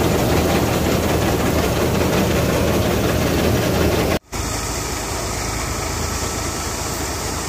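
An engine running steadily and loudly, with a low even hum. Just past four seconds in the sound cuts out for a moment and then goes on a little quieter.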